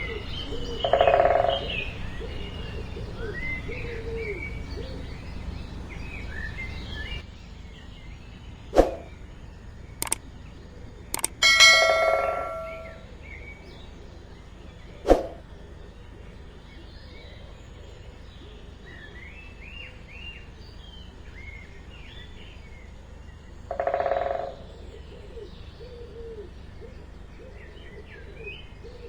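Birds chirping and twittering throughout, with three louder, lower calls spaced about eleven seconds apart. A few sharp clicks or taps come in the middle.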